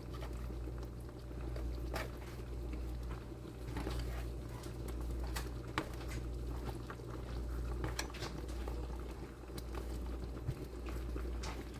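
Pot of chicken broth with dumplings boiling, with irregular bubbling pops over a steady low hum.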